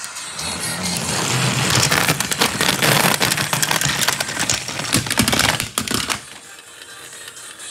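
Battery-powered toy trains running on plastic track: a loud rattling clatter full of quick clicks over a low motor hum, dying down about six seconds in.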